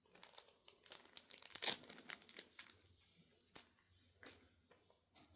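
Thin plastic card sleeve crinkling and rustling as a trading card is slid into it: a run of short crisp rustles, the loudest about a second and a half in, thinning out to a few faint clicks.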